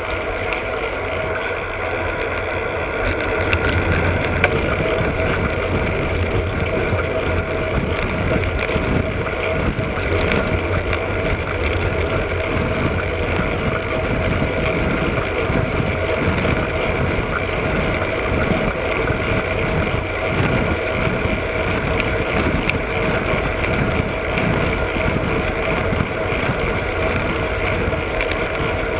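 Koga Kimera road bike rolling steadily along an asphalt lane, heard from a camera under its saddle: a continuous tyre and drivetrain hum over a low rumble of wind on the microphone.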